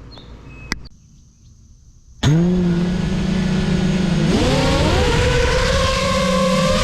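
Lumenier QAV-S 5-inch FPV quadcopter's motors starting suddenly about two seconds in with a steady whine, then rising in pitch as the throttle comes up a couple of seconds later.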